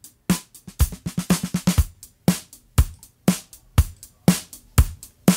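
Electronic drum loop of kick, snare and hi-hat hits, about two beats a second at 120 BPM, played through the Audio Damage RoughRider 3 compressor plugin set heavy-handed, so the hits sound squashed.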